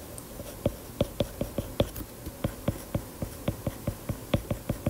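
Stylus tip tapping on a tablet's glass screen while handwriting small characters: a rapid, irregular run of light clicks, about four a second.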